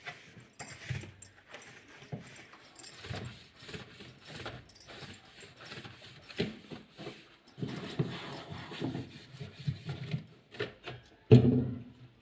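Hand-cleaning a fridge: irregular wiping and scrubbing with small clicks and rattles of plastic parts, and a louder knock about eleven seconds in.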